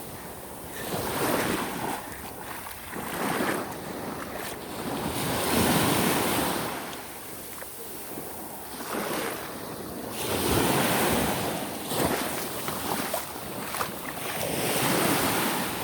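Small surf waves breaking and washing up the beach, swelling and fading every few seconds, with wind buffeting the microphone.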